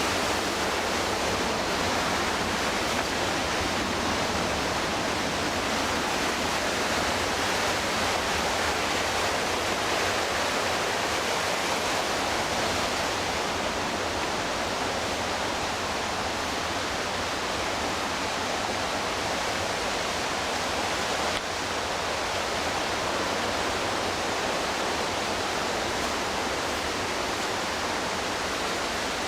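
Steady rush of the McKenzie River's whitewater, with no breaks; it drops slightly in level about three-quarters of the way through.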